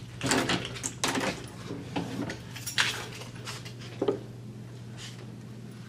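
A school door being opened and passed through: a series of sharp knocks and metallic clinks over a steady low hum.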